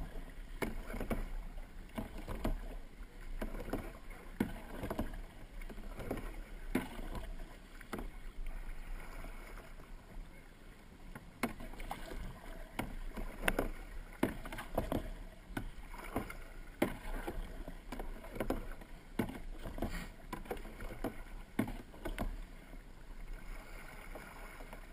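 Kayak paddle blades dipping and pulling through the water in a steady rhythm of splashy strokes, roughly one a second, over the wash of moving water.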